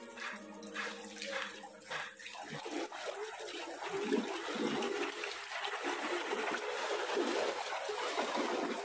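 Water splashing and sloshing as a boy swims and kicks through a concrete fish tank.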